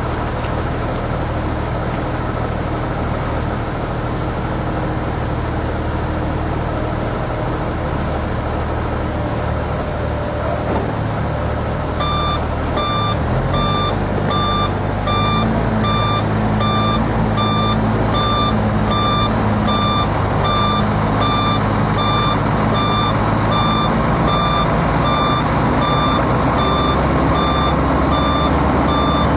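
Diesel engines of articulated dump trucks working hard during a tow pull, stepping up in pitch about thirteen seconds in as the pull starts. From about twelve seconds in, a reversing alarm beeps steadily, a little over once a second.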